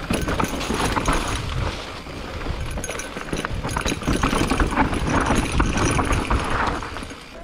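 E-mountain bike riding over rough trail: tyres rumbling on dirt and rock, with the bike rattling and clattering through a string of irregular knocks. It eases off about two seconds in and again near the end.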